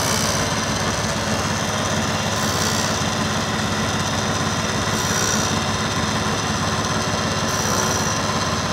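Milling machine running with its end mill cutting metal ribs out of the bore of a clutch cover casting: a steady machine hum and cutting noise, with a brief high-pitched scrape about every two and a half seconds.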